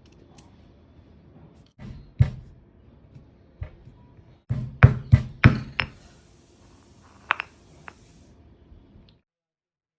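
A series of sharp knocks and clinks of objects being handled. There is one knock about two seconds in, a quick run of about five around five seconds in, and another near seven seconds. The sound stops abruptly a little after nine seconds.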